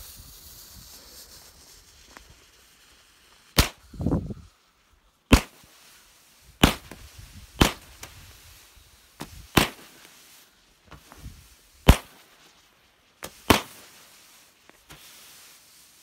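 Mini 100-gram consumer firework cake firing. A fading fuse hiss, then about seven sharp shots one to two seconds apart with a few smaller pops between them, each shot launching a flying fish effect.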